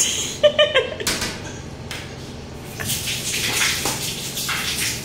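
Shower water spraying and splashing in a small tiled stall, swelling about three seconds in. A brief voice sound near the start.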